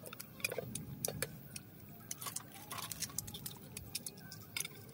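Cutlery clicking and clinking against plates and bowls as people eat: forks, a knife and a spoon striking china, plastic and metal dishes, several light irregular clicks a second.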